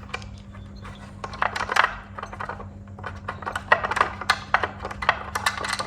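Sharp metallic clicks and clinks of hand tools working on the cam-cover bolts of a Ducati S2R 1000 engine, in three bunches, over a steady low hum.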